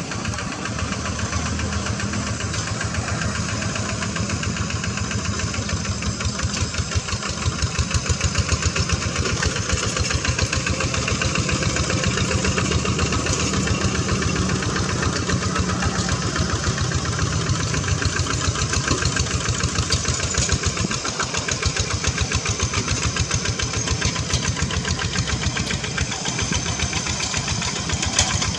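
The single-cylinder diesel engine of a two-wheel hand tractor running steadily, its firing strokes coming as a rapid, even knock.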